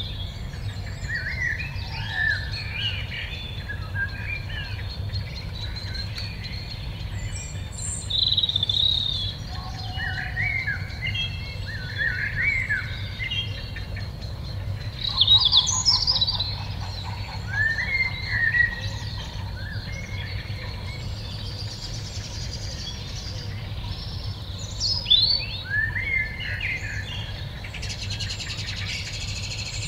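Songbirds singing in a rural dusk chorus: several birds trading short, varied, warbling phrases, with a brief rapid rattle about halfway through. A steady low hum runs underneath.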